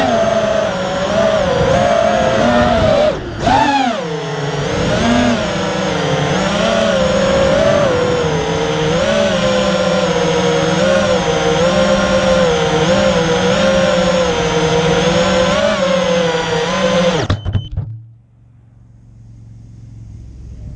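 FPV racing quadcopter's T-Motor F60 III brushless motors whining, the pitch wavering up and down with throttle. About three seconds in the throttle drops briefly and then punches up in a quick rise; about seventeen seconds in the motor sound cuts off suddenly.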